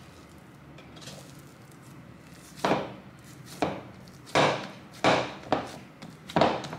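Open palm slapping a soft ball of bread dough flat in a wooden bowl: about six sharp pats starting a couple of seconds in, roughly half a second to a second apart.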